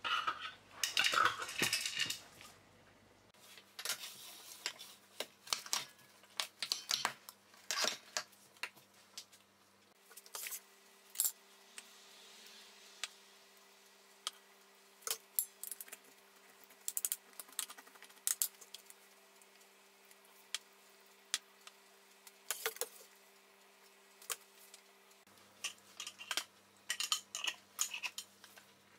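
Glass jars with screw lids clinking and knocking against each other and a metal tray as they are picked up, turned upside down and set back down. Scattered sharp clicks, busiest at the start and near the end.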